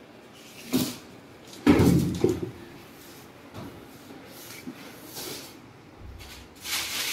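A Whirlpool top-loading washing machine is tipped back upright and set down on its base with a heavy thump about two seconds in. Lighter knocks and brief rustling handling noises come before and after it.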